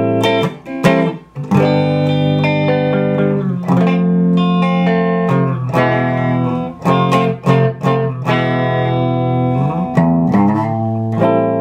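Electric guitar played dry through a prototype 50-watt two-channel amp head on its clean channel, no effect pedal in line: chords strummed and let ring, broken up by several short, quick strums.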